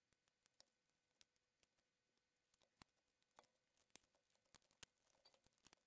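Faint, irregular clicks and taps of a Canon UC-X10 camcorder's plastic casing being handled and taken apart.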